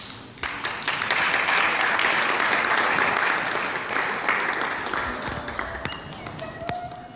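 Audience applause that begins about half a second in, holds strong for a few seconds, then dies away.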